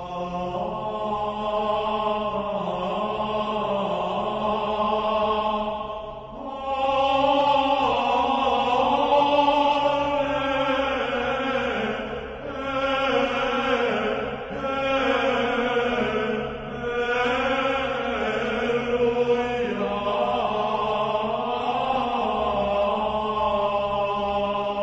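Slow chant-like vocal music, with long held sung notes over a steady low drone. It moves in phrases, with short breaks every few seconds.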